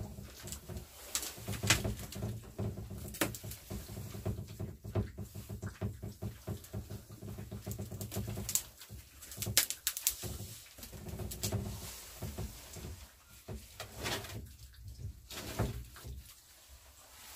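Two puppies eating from a metal pan: rapid wet chewing, lapping and smacking, with sharper clicks standing out now and then.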